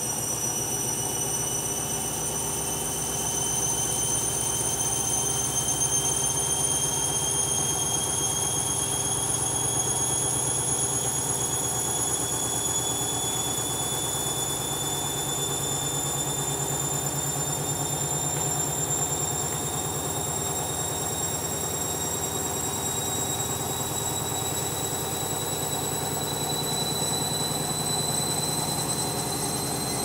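Candy front-loading washing machine's drum motor whining over a low hum, the whine climbing slowly and steadily in pitch as the drum gathers speed.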